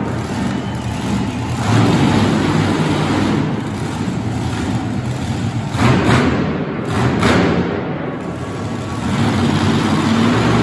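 Monster truck engine running loud, its sound swelling and easing, with two sharp loud spikes about six and seven seconds in.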